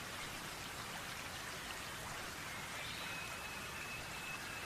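Shallow river running over stones: a steady rushing babble of water. From about halfway in, a thin, faint high whistle sounds over it.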